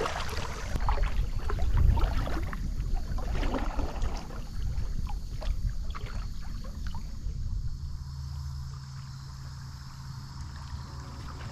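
A kayak paddle dips and drips as a kayak moves along a shallow river, with splashes scattered through the first half over a steady low rumble. A low steady hum comes in about two-thirds of the way through.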